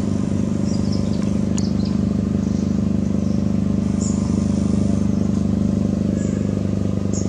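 A steady low mechanical hum, unchanging throughout, with short faint high-pitched chirps now and then.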